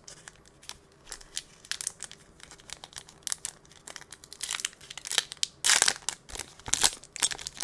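Foil wrapper of a 2021-22 Upper Deck Series 2 hockey card pack crinkling in the hands, then torn open with louder rips in the last couple of seconds.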